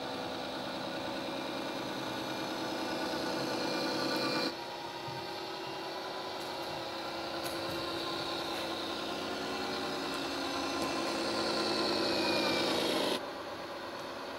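Simulated V8 engine sound from the sound unit of a Tamiya 1/14 Knight Hauler RC truck, rising in pitch as the truck accelerates. The pitch drops back abruptly about four seconds in and again near the end, then climbs again.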